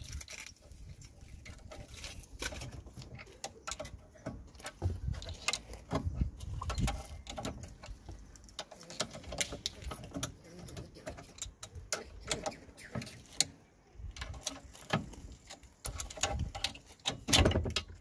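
Irregular metal clicks, taps and scrapes of a flathead screwdriver prying a Mitsubishi Lancer Carisma's rear brake caliper off its disc. A cluster of louder knocks comes near the end as the caliper is worked loose by hand.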